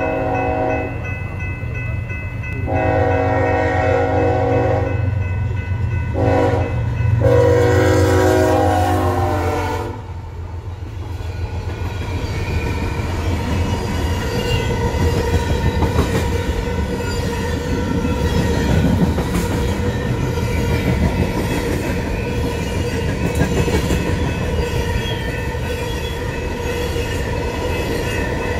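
Diesel locomotive's multi-tone air horn blowing for the grade crossing: the tail of one long blast, then another long, a short and a final long one ending about ten seconds in, over the steady ringing of the crossing bell. Then the locomotives pass and a long string of covered grain hoppers rolls through, steel wheels clicking over the rail joints.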